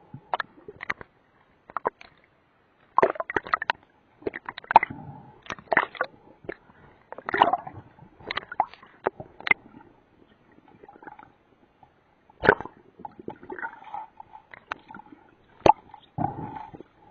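Water sloshing and gurgling, broken by irregular sharp clicks and knocks, some in quick clusters, over a faint steady hum.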